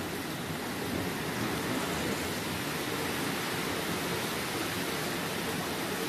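Heavy tropical downpour in a cyclone: dense rain pouring steadily as an even hiss, swelling slightly about a second in.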